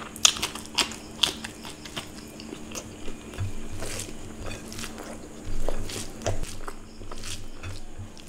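Close-up mouth sounds of biting into and chewing a piece of raw king chilli: a few sharp, crunchy bites in the first second or so, then softer wet chewing.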